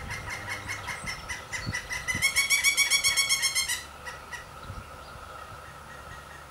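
Pileated woodpeckers calling at the nest: a rapid run of repeated notes, about nine a second, loudest in a burst of roughly fifteen notes in the middle. It is fainter and more scattered before and after that burst.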